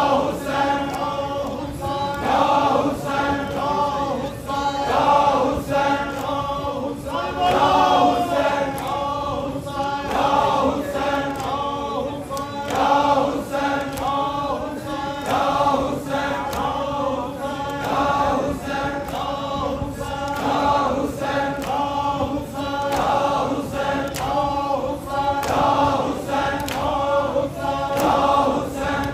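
A crowd of men chanting a noha lament in unison, in rhythmic phrases, with chests beaten by hand in time with the chant (matam).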